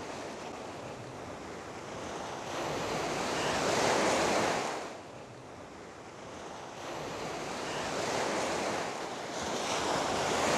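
Sea surf washing in, swelling to a peak about four seconds in, easing off, then building again twice toward the end.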